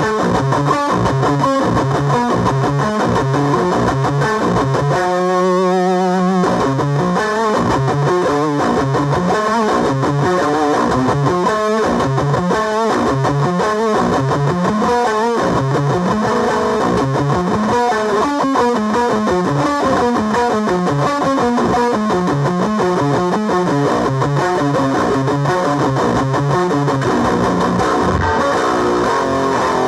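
Electric guitar played through a JHS Bonsai overdrive pedal with a distorted tone, riffing continuously. About five seconds in comes a held chord that wavers in pitch.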